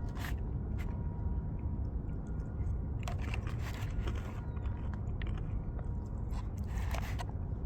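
Wind buffeting the microphone in a steady low rumble, with scattered crunching footsteps, most noticeable about three seconds in and again near the end.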